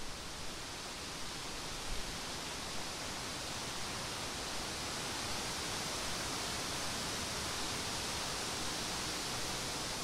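Wind blowing through birch leaves and field grass: a steady rushing rustle that slowly builds.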